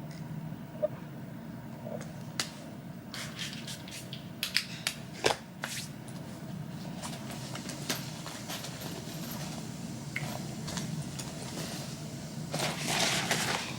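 Scattered light clicks and taps over a steady low hum, with a brief rustling noise near the end.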